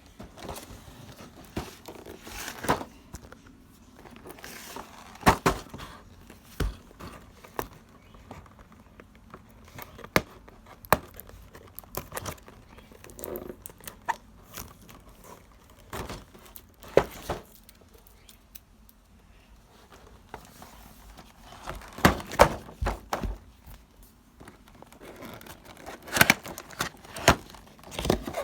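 Toy playset packaging and plastic pieces being handled: crinkling and tearing, with irregular sharp knocks and clicks.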